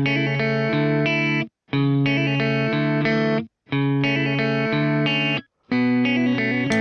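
Background music: an electric guitar with effects playing a phrase in four blocks of about a second and a half, each cut off by a brief silence.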